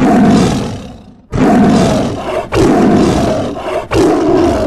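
Tiger roaring: one long roar that fades out about a second in, then three more roars in quick succession.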